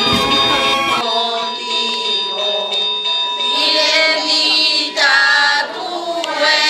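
Group singing led by women's voices, choir-like, on a recorded track. For about the first second, bell-like ringing over a fuller outdoor sound is heard before it cuts off abruptly.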